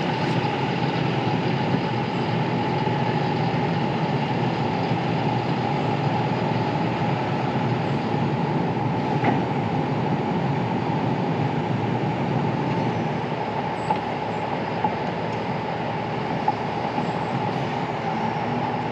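Heavy diesel equipment running steadily, a continuous grinding mechanical din with a steady whine through it and a few faint clicks.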